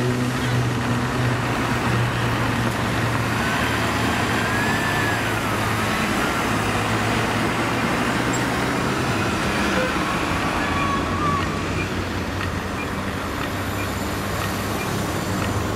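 Road traffic at a city junction. A heavy vehicle's engine hums low at the start and fades about nine seconds in. A faint siren wails up and down in the middle.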